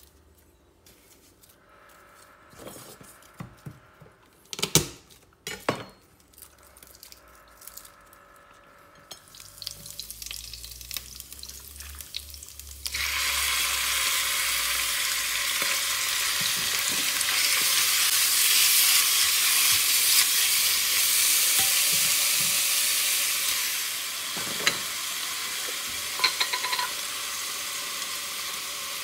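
Raw chicken strips going into a hot wok and frying, starting suddenly as a loud sizzle about halfway through and holding steady, easing a little near the end, with a few clacks of the spatula. Before that, only a few knocks and handling sounds.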